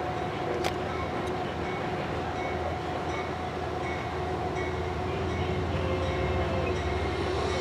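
Amtrak GE P32AC-DM diesel locomotive approaching at the head of a passenger train, its low engine rumble and steady hum growing louder over the last few seconds, with a single sharp click about a second in.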